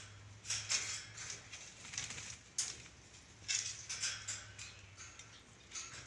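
Purple swamphen bathing in a shallow basin of water, splashing and shaking itself in short bursts, several in a row about a second apart.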